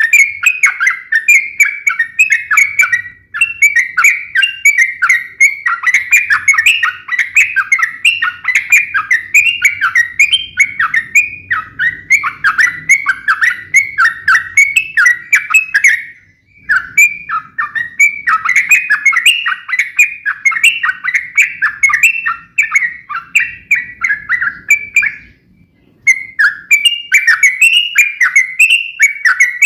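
Yellow-vented bulbul (trucukan) singing a fast, unbroken run of sharp chattering notes, the 'fighting' song used to provoke other bulbuls to answer. The run pauses briefly about 16 seconds in and again near 26 seconds.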